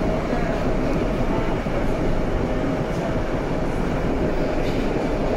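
A BVG A3L71 small-profile U-Bahn train running steadily between stations, heard from inside: a continuous rumble of wheels on rail and traction equipment with a faint steady tone.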